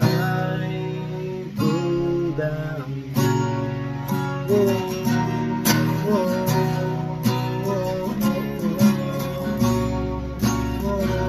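Takamine acoustic guitar strummed through an Em–C–D–G chord progression, with a man singing a melody over it.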